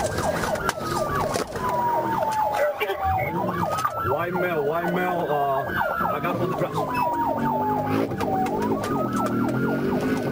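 Police car siren wailing, its pitch climbing quickly and then sliding slowly down, repeating about every four seconds.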